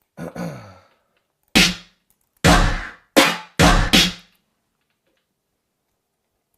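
Electronic drum one-shot samples from a producer's sample pack played one at a time: about six sharp hits, such as kicks and snares, irregularly spaced over a few seconds, the first softer than the rest.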